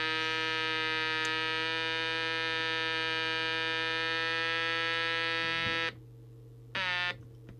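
Jesan KT002 CB walkie-talkie's audio stage oscillating: a steady, buzzy electronic tone that cuts off suddenly about six seconds in, then returns in a short burst whose pitch drops as it starts. The racket is audio instability, a sign of faulty electrolytic capacitors.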